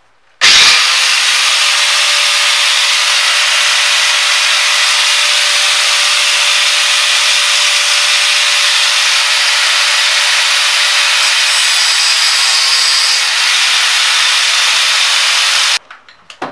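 Angle grinder with a thin cutting disc cutting slits along a hose, the slots that will let wort filter through. The motor starts abruptly, runs steadily with a constant whine under the cutting noise, and cuts off shortly before the end.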